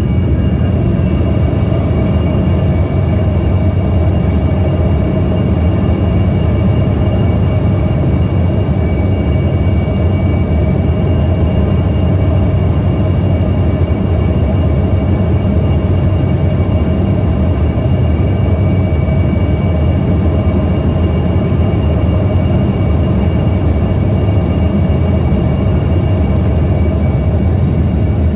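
Steady cabin noise inside an airliner on descent, flaps extended: a low rumble of engines and rushing air, with faint steady whining tones above it.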